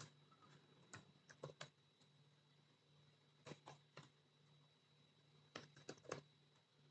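Faint keystrokes on a computer keyboard, coming in three short bursts of typing, over a faint steady low hum.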